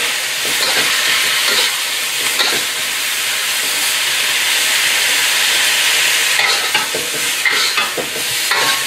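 Beef and vegetables sizzling in a hot wok over a gas burner, stirred with a metal wok spatula. A steady frying hiss runs throughout, with the spatula scraping and clinking against the wok now and then, more often in the last few seconds.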